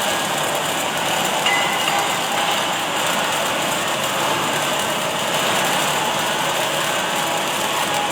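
Automatic welding machine at work: a steady, even hiss with no break.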